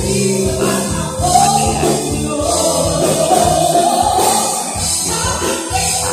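Live band music: female vocalists singing over electric guitar and a drum kit, with a steady beat.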